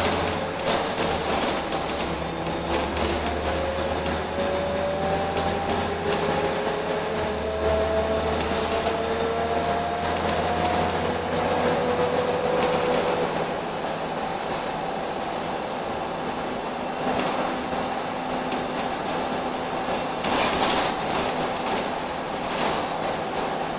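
Cabin noise of a Wright Eclipse single-deck bus on the move: engine and drivetrain running, with a whine that rises slowly in pitch over the first dozen seconds as the bus gathers speed, over road noise and light rattling of the interior.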